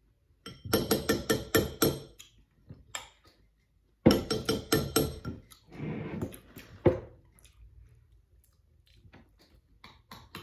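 A spoon beating a pink dessert mix in a measuring jug: fast, rhythmic clinks in two bursts, the first about half a second in and the second about four seconds in. A single sharp knock follows near the end of the second burst.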